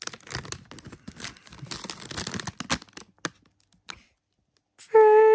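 Crinkling and crackling of a plastic Cadbury Dairy Milk Buttons chocolate pouch being handled, full of sharp crackles, for about three seconds. It stops, and near the end a loud, drawn-out, high-pitched vocal sound begins.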